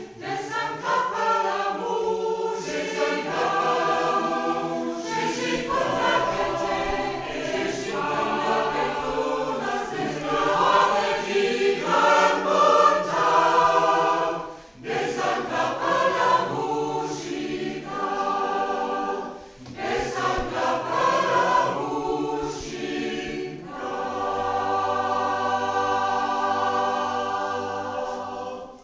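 Mixed choir of men's and women's voices singing in harmony, pausing briefly for breath twice, then holding a long final chord that is cut off just before the end.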